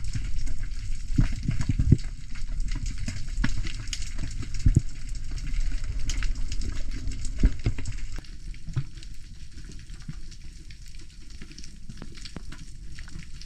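Underwater sound on a diving camera: a low water rumble under a dense crackle of short clicks, quieter from about eight seconds in.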